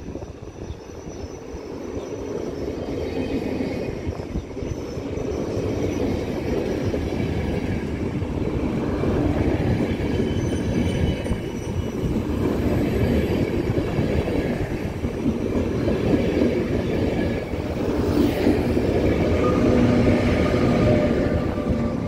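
ÖBB Intercity passenger train rolling past along the platform, growing louder over the first few seconds. Near the end its Siemens Taurus class 1116 electric locomotive passes close by with a steady hum.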